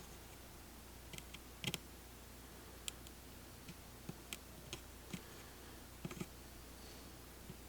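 Scattered light clicks and taps, with the sharpest pair about two seconds in, from small tools and parts being handled while a replacement display is fitted onto a phone's circuit board. A faint steady low hum lies underneath.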